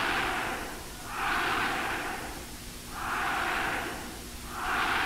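A huge massed crowd chanting in unison, the roar swelling and fading in regular waves about every second and a half.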